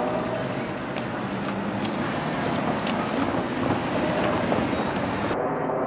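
Steady outdoor vehicle and engine noise with a few faint clicks. Near the end the sound abruptly turns duller, losing its high end.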